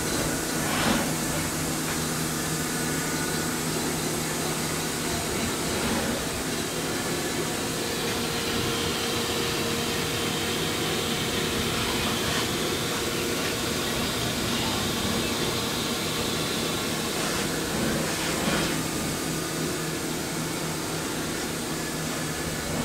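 Large 3D printer running a print: NEMA 23 stepper motors turn Igus high-helix lead screws to move the gantry, making a steady mechanical hum. A higher whine joins from about a third of the way in to about two thirds, with a few faint knocks.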